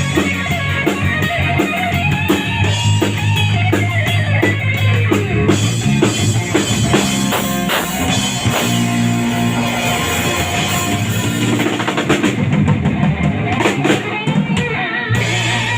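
Rock band playing, with drum kit and guitar.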